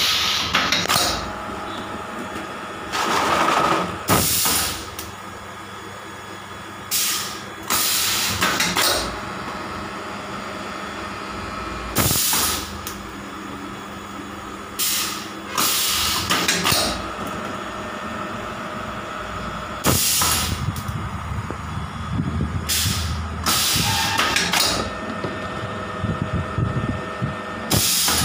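Small HDPE bottle moulding machine running with a steady hum, broken every few seconds by loud hissing blasts of compressed air, each lasting up to about a second.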